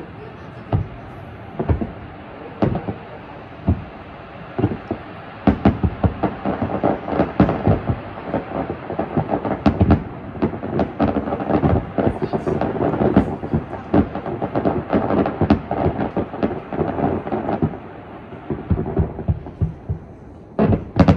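Distant aerial fireworks shells bursting in rapid, overlapping bangs, densest from about five seconds in until near the end, then a fresh run of sharp bangs at the very end.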